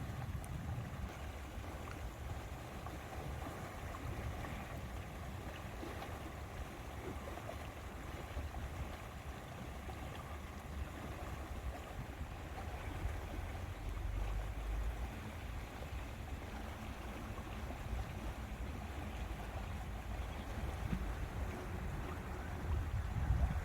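Lakeside ambience: steady wind gusting on the microphone with a low rumble, over a soft wash of lake water lapping.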